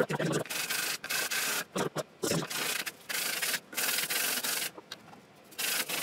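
Intel i7-3770 CPU's metal heat spreader being lapped by hand on sandpaper over a glass plate: a run of rasping back-and-forth strokes, each about half a second long with short pauses, wearing down the plated surface to flatten it.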